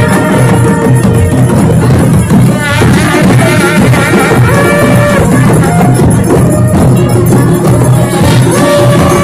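Traditional Himachali procession band playing: drums beating steadily under wind instruments sounding long held notes that shift in pitch every second or so.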